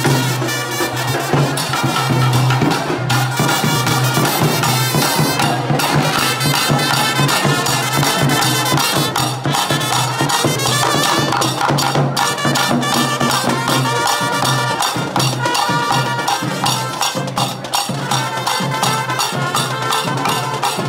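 Traditional procession music played live: hand drums beating a dense, steady rhythm, with a wind instrument playing a sustained melody over them.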